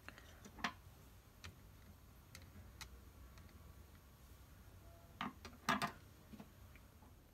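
Scattered light clicks and taps of fingers handling a Raspberry Pi board, its wires and a plastic 3D-printed case, with a louder cluster of clicks about three-quarters of the way through.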